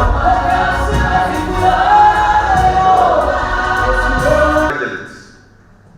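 Gospel choir singing with a deep bass accompaniment, cutting off abruptly near the end and leaving a faint low hum.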